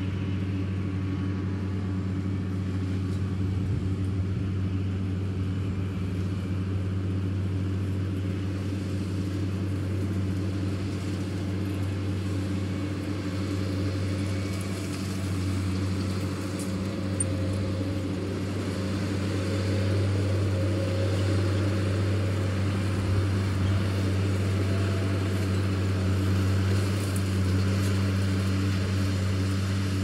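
Fendt tractor's diesel engine running at a steady working speed while pulling a rotary hay rake, a low, even drone that grows slightly louder in the last third.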